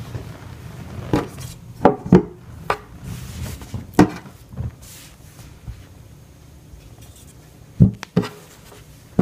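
Objects being handled and set down on a table: scattered sharp knocks and clacks, several close together about 2 s in, one about 4 s in and a pair near the end, with rubbing and shuffling between them.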